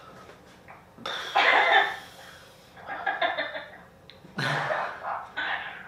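A man coughing in a series of bursts, the loudest about a second in and three shorter ones after it.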